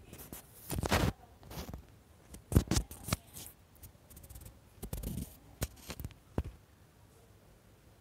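Spatula scraping and knocking against the inside of a cooking pot while onions are stirred. The strokes are short and irregular and come in small clusters, with quiet between them.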